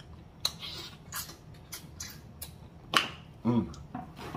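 Close-up mouth sounds of eating turkey neck meat: a string of wet lip smacks and clicks, the loudest about three seconds in, with a short voiced hum about half a second later.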